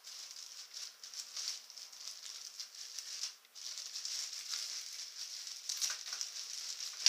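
Plastic bag around a PC case rustling and crinkling as it is handled, a continuous crackly rustle with a short lull about three and a half seconds in.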